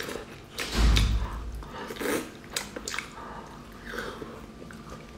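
Close-up eating sounds: wet slurps, sucking and chewing as a chilli-topped scallop is sucked off its half shell. The loudest slurp comes about a second in, followed by smaller wet clicks.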